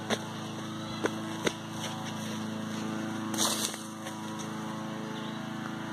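A steady, low-pitched motor drone, with a few sharp clicks and a brief rustle about three and a half seconds in.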